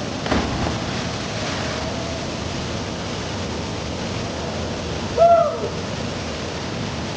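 Steady rushing of a waterfall. About five seconds in, a short hooting call rises and falls in pitch.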